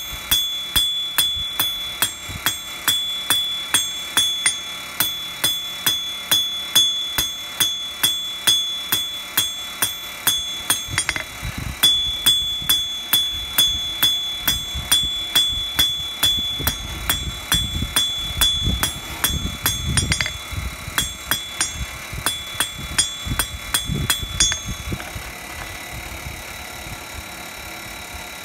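Blacksmith's hammer striking a thin metal bar on an anvil in steady blows, about two or three a second, each blow ringing. There is a short break about eleven seconds in, and the hammering stops a few seconds before the end.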